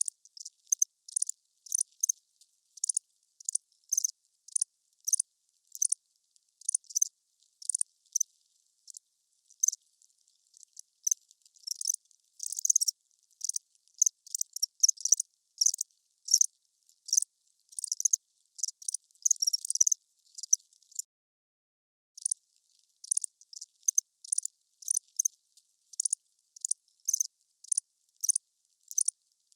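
Crickets chirping at night: short, high chirps repeated a few times a second, growing denser in the middle and breaking off for about a second about two-thirds of the way through.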